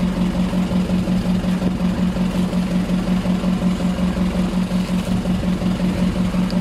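Fishing boat's engine running steadily, a low hum with an even, rapid pulse.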